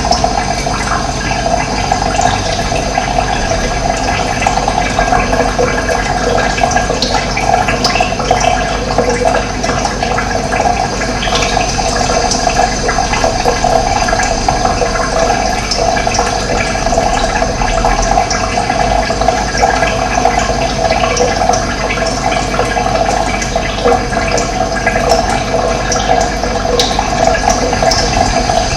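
Running water, a loud, steady rushing flow.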